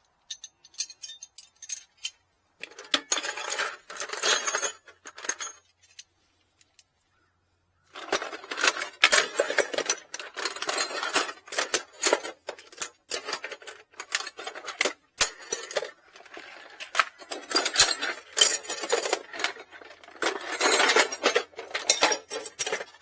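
Metal hand tools and sockets clinking and rattling against each other as they are rummaged through in a toolbox, in clusters with a pause of about two seconds a little before the middle.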